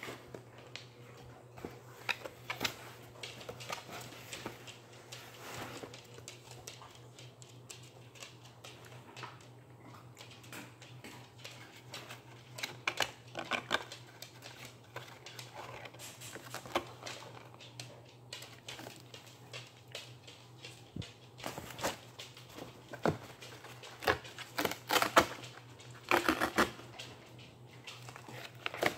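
Irregular scratching, scraping and tapping on cardboard as a kitten moves around inside a cardboard box, busiest and loudest near the end, over a faint steady low hum.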